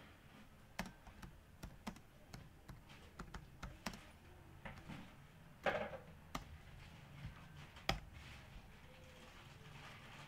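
Typing on a computer keyboard: faint, irregular key clicks, with a couple of louder knocks a little past halfway and about three-quarters through.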